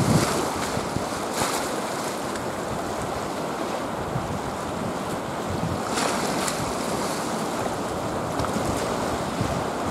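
Rough sea surf washing and breaking on rocks, mixed with wind buffeting the microphone; the noise swells briefly about a second and a half in and again around six seconds.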